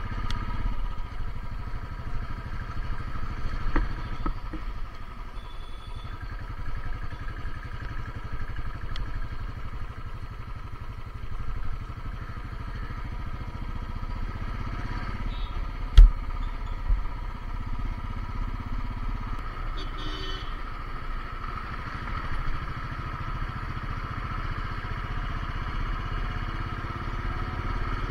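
Royal Enfield 350 single-cylinder motorcycle engine running steadily while riding, with a sharp knock about halfway through.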